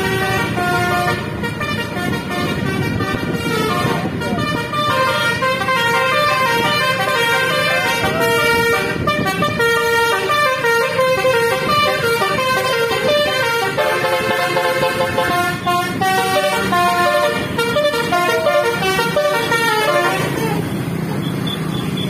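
Basuri V4 telolet horn on a coach, playing a multi-note melody of stepping tones over the bus's engine and traffic noise. The melody stops about two seconds before the end, leaving only road noise.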